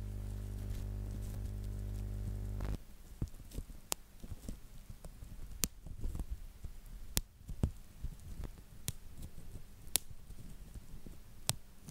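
A steady low hum cuts off suddenly about three seconds in. Then plastic bubble wrap crinkles under fingers close to the microphone, with about seven sharp single bubble pops a second or two apart.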